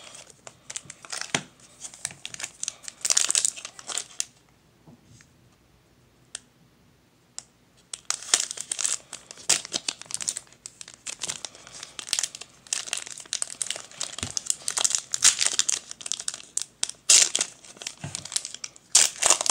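Foil Pokémon booster pack wrapper being crinkled and torn open by hand: irregular crackling and tearing, with a quiet lull of about four seconds starting about four seconds in.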